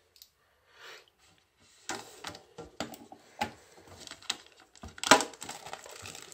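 Plastic shrink-wrap being picked at and torn off a metal card tin: irregular crackling and crinkling clicks starting about two seconds in, with the sharpest tear about five seconds in.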